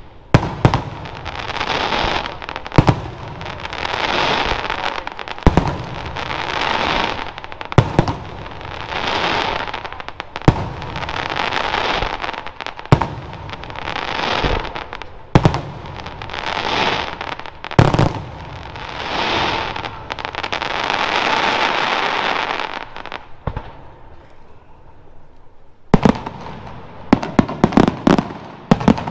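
Aerial firework shells bursting with sharp bangs every two to three seconds, each bang followed by a second or so of crackling from the bursting stars. It eases off for a couple of seconds, then a rapid run of bangs starts near the end.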